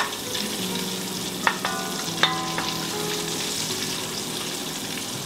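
Bacon sizzling as it fries in an enamelled Dutch oven, stirred with a wooden spoon, with a couple of sharp knocks of the spoon against the pot, each ringing briefly, about one and a half and two seconds in.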